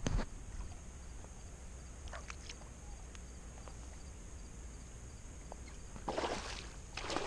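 Two short splashes of water near the end, from a redfish hooked on a stick bait being played beside the kayak, over a steady faint hiss with a thin high tone. A couple of faint ticks come about two seconds in.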